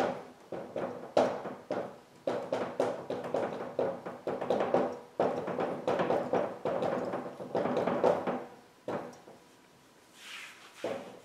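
Dry-erase marker writing on a whiteboard: a quick run of squeaks and taps as each stroke goes down. It stops about nine seconds in.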